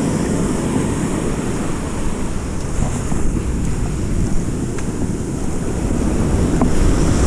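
Ocean surf breaking and washing up the sand, with wind rumbling on the microphone.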